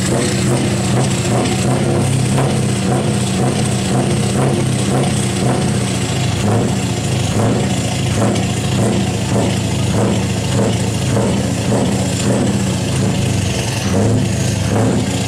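Heavy truck's diesel engine idling steadily, heard close up at its chrome side-exit exhaust pipe.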